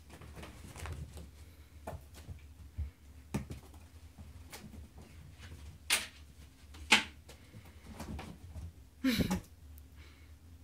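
A few sharp clicks and knocks, the loudest about six, seven and nine seconds in, over a faint low hum.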